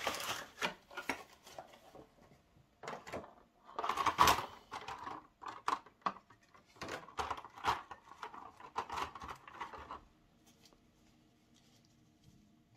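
Plastic packaging and a model tank wagon being handled: irregular clicks, taps and rustles in short clusters, stopping about ten seconds in.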